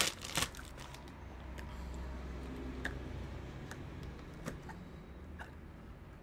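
Quiet handling of a clear plastic device and its plastic bag: a few light clicks and taps over a low steady hum.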